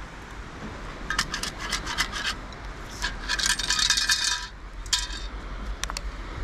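A stainless steel sand scoop with a perforated basket digging into dry beach sand and being shaken, with sand and grit rattling and scraping through the holes. A short spell about a second in, then a longer, denser rattle about three seconds in that lasts about a second and a half.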